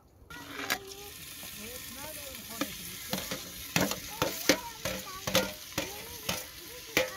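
Chopped tomatoes, green chillies and garlic are scraped into a hot pot and start sizzling and frying loudly. The sizzle begins just after the start. A metal ladle clinks and scrapes repeatedly against the metal lid and the pot.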